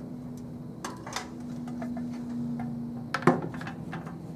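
Scattered light clicks and knocks as a power supply unit is drawn out of a desktop PC case, the loudest knock about three seconds in, over a steady low hum.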